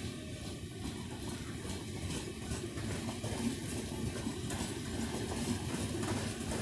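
Express passenger train rolling out of a station: a steady low rumble with scattered sharp clicks and clatter from the wheels on the track.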